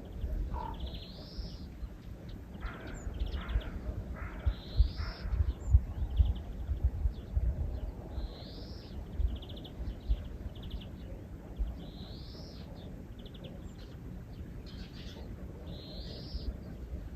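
Birds calling outdoors in the morning. One bird repeats a short call that rises and falls, about every three to four seconds, with short rapid chirp trills between, over a low rumble.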